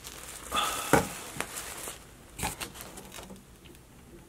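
Packaging being handled: a plastic garment bag rustling, then a cardboard shipping box being knocked about and its flaps pulled open. There is a sharp knock about a second in and another halfway through, with softer scraping and ticks after.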